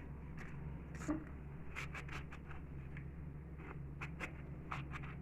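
Faint, scattered clicks and scrapes of a lemon being handled, cut and packed with salt, with one slightly louder knock about a second in.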